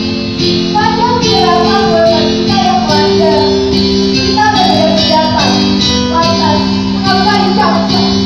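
Singing voice carrying a melody over music with steady held chords.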